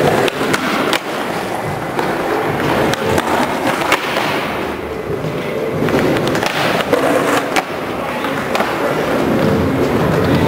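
Skateboard wheels rolling over a smooth concrete floor, with several sharp clacks of the board. The rolling fades somewhat in the middle and grows again near the end.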